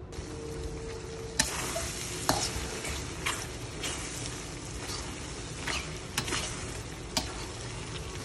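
A spatula stirs and scrapes sambal paru (beef lung in red chilli paste) frying in a pan, knocking against the pan every second or so over a steady sizzle. The sambal is being fried down to cook off its liquid and dry it.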